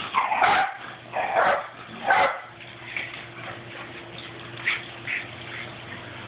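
Dog barking: three loud barks in the first two and a half seconds, then a few fainter ones.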